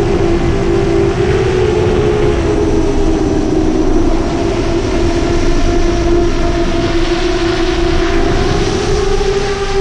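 Brushless motors of a 7-inch FPV quadcopter (Brother Hobby 2507 1500KV, 7040 triblade props) running in flight: a steady whine whose pitch drifts slightly up and down with throttle, over a low rumble.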